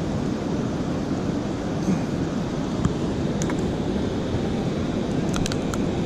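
Steady rushing of water below a dam, with wind on the microphone. A few light clicks come near the end.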